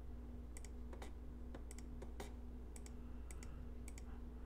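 Faint scattered clicking of computer controls while working in an image editor: about ten clicks, some in quick pairs. A steady low electrical hum runs underneath.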